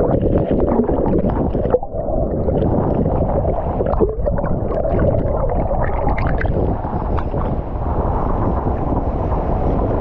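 Waterfall pouring steadily, with heavy wind rumble on the microphone.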